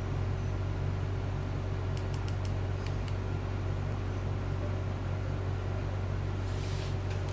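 Steady low hum with a fan-like hiss, broken by a quick run of light clicks about two to three seconds in and a brief rush of hiss near the end.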